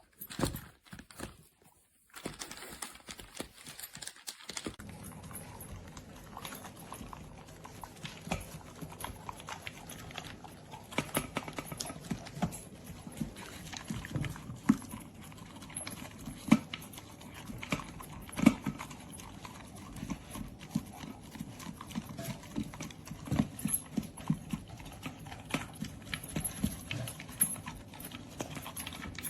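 Chihuahua eating from a slow-feeder bowl: irregular clicks and knocks as it noses and picks food out of the bowl's ridges, busier from about four seconds in.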